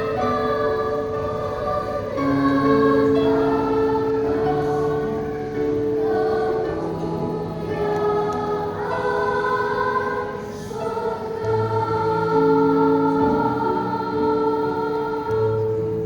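A children's choir sings a hymn, holding long sustained notes that change every second or two, over low steady accompaniment notes.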